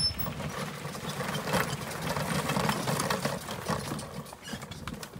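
Loaded cargo bike being pushed on foot up a steep gravel path: scuffing, crunching steps and a run of fast, light clicks and rattles from the bike.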